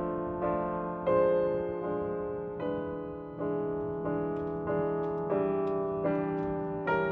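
Slow, soft piano music: single notes and chords struck about every three-quarters of a second, each ringing out and fading, over a held low tone.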